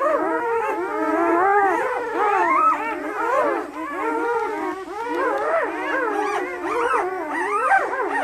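A litter of two-day-old German Shepherd puppies crying together: many high cries overlap, each rising and falling in pitch, with no break.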